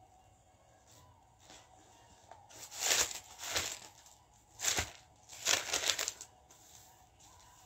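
Bible pages being turned: a few quick paper rustles between about three and six seconds in.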